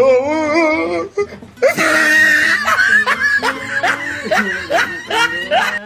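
A person laughing hard: a long wavering note, then a string of quick falling 'ha' bursts.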